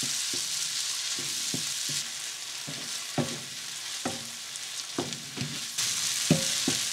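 Chopped tomatoes, onion, ginger and garlic sizzling in oil in a frying pan while being stirred with a wooden spatula, which knocks and scrapes against the pan about once or twice a second. The sizzle eases in the middle and picks up again near the end.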